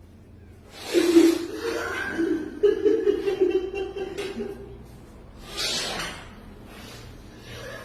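A person's voice, low and laughing, for a few seconds, followed by a short breathy sound.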